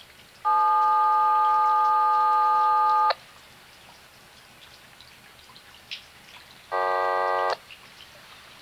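Signalling tones over a railroad radio scanner: a steady multi-note tone for about two and a half seconds, then a shorter, buzzier tone near the end, each cut off sharply with a click.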